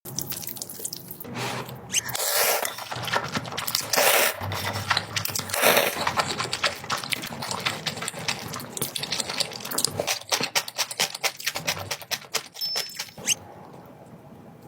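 Close-miked eating sounds: a person chewing, with many quick wet mouth clicks and a few louder bursts, dying down near the end.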